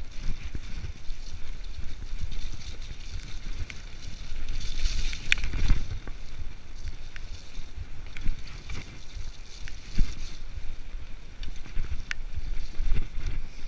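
Mountain bike rolling fast down a dirt trail: wind buffeting the microphone, tyres hissing over dirt and the bike rattling, with sharp clicks and knocks from bumps, loudest about four to six seconds in.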